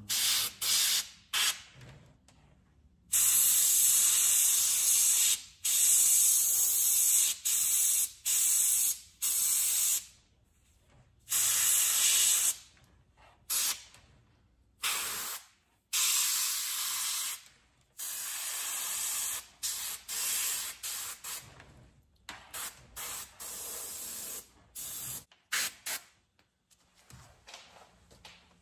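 Cheap airbrush spraying paint in many short bursts of hiss, each starting and stopping sharply, from a fraction of a second to about two seconds long, with short quiet gaps between them.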